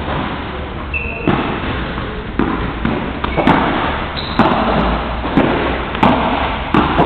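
Padel rally: a series of sharp ball impacts, racket hits and bounces, coming roughly once a second.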